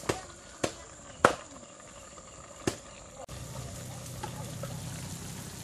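Sharp pops, four of them in the first three seconds, from thick soy-sauce gravy spattering as it boils down in a lidded wok. After about three seconds the sound changes abruptly to a steady low hum.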